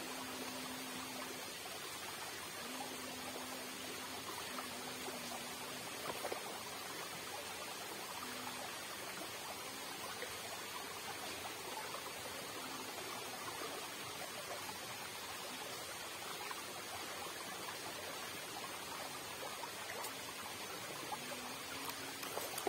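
Swift water rushing steadily along a concrete irrigation channel.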